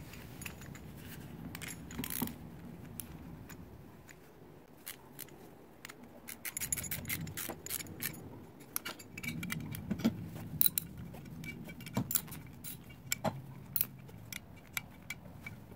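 Steel workbench caster parts and loose bolts and nuts being picked up and fitted together by hand: scattered metallic clinks and rattles, sparse at first and busier through the second half.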